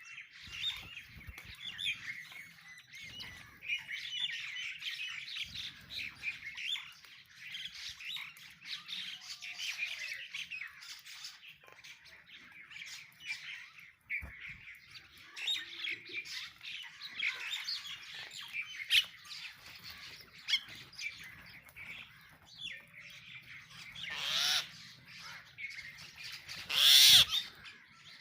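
A flock of sparrows chirping continuously as they feed, the chatter thick and unbroken. Two loud harsh squawks stand out near the end.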